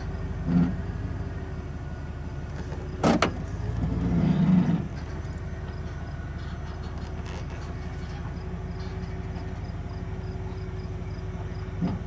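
Chevrolet Silverado 2500's 8.1-litre Vortec V8 idling steadily, heard from inside the cab, running on new coils, plugs and wires that the owner judges to have cured its misfire. A sharp click comes about three seconds in, and a brief louder sound follows just after four seconds.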